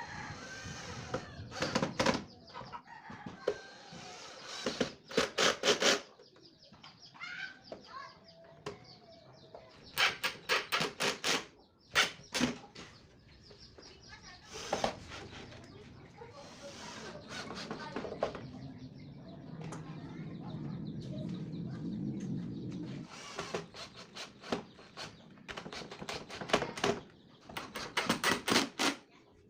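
Chickens clucking and a rooster crowing, mixed with repeated clusters of sharp knocks.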